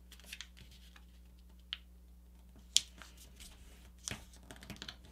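A paper airplane being folded and creased by hand: faint rustles and crackles of the paper, with one sharper crackle near the middle and a few quick ones near the end.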